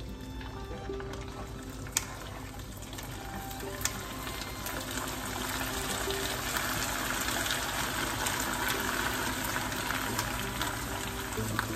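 Prawn crackers frying in hot oil in a wok: a steady sizzle that grows louder about four seconds in as the batch hits the oil and puffs up. A metal strainer ladle clicks against the pan two or three times before that.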